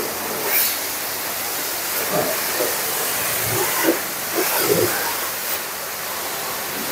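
High-pressure car wash wand spraying water onto a car's body panels: a steady hiss.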